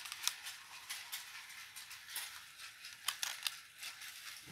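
Scattered light clicks and rustles of hands handling plastic toy pieces: a Lego battery box and a toy railway signal.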